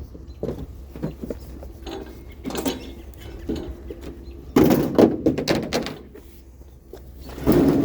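A series of knocks and thunks as objects are handled and set down, with a louder clatter of hits about four and a half seconds in and another near the end.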